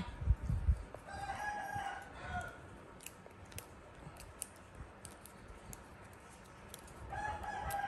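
A rooster crowing twice: one long held call about a second in, and another starting near the end.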